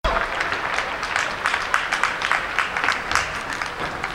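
Scattered applause in a large arena: many short, irregular claps over a steady crowd hubbub.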